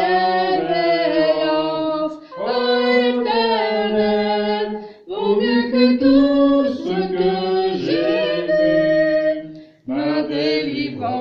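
Several voices singing the refrain of a French hymn together in harmony. Long held notes in phrases, broken by short breath pauses about two, five and ten seconds in.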